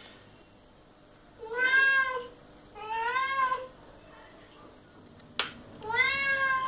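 Domestic cat meowing three times, each meow under a second long, rising and then falling slightly in pitch. A single sharp click comes shortly before the third meow.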